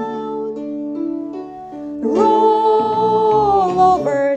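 A children's song: a woman's voice sings a held note over a light plucked-string accompaniment. A short run of stepped instrumental notes follows, then a long sung note that sags slightly in pitch at its end.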